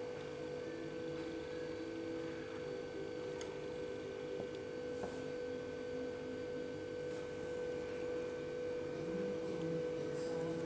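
A steady hum with a constant mid-pitched tone and a fainter higher one.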